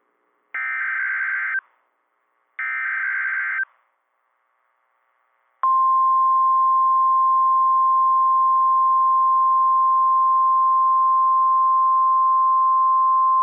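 NOAA Weather Radio EAS signalling: two roughly one-second bursts of screechy digital SAME header data tones a second apart, then after a short gap the steady 1050 Hz warning alarm tone sounding over a faint radio hiss, the signal that announces a new warning, here a tornado warning.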